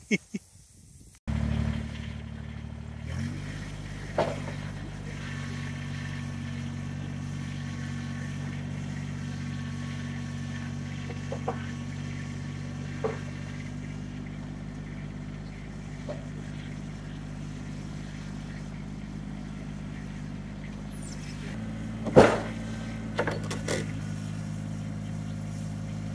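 Kubota BX23S compact tractor's three-cylinder diesel engine running steadily, its pitch stepping up slightly about three seconds in. A loud knock comes about twenty-two seconds in, followed by a couple of lighter knocks.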